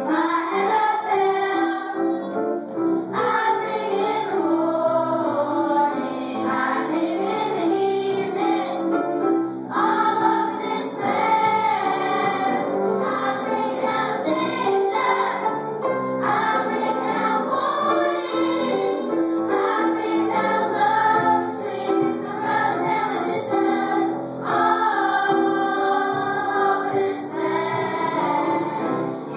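Children's choir singing a song, in phrases with short breaks between them.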